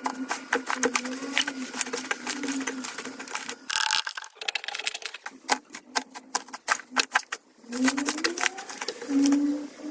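Crystal clear slime being squeezed and stretched by hand: dense, rapid clicking and crackling pops over a low, wavering squelch, with short lulls about four and seven and a half seconds in.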